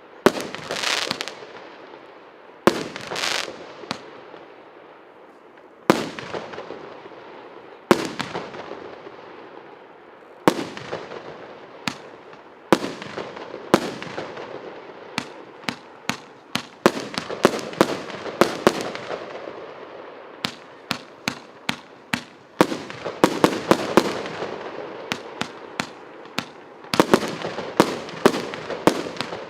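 A 50-shot, 1.25-inch consumer firework battery (cake) firing: sharp bangs of bursting shells, each trailing off. The shots come a couple of seconds apart at first, then in quick runs of several a second from about halfway.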